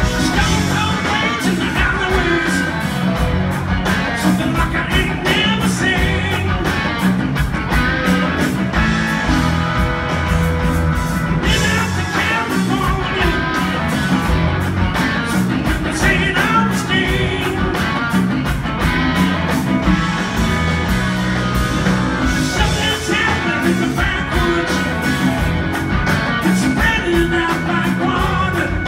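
Rock band playing live: electric guitars, bass, drums and keyboards with a man singing, heard from out in the audience of a theatre.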